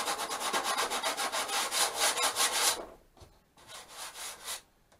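Coarse sandpaper on a sanding block rubbed back and forth over the balsa sheeting of a model plane's fuselage, in quick, even strokes of about seven or eight a second. The strokes stop a little under three seconds in, and a short, fainter run of strokes follows near the end.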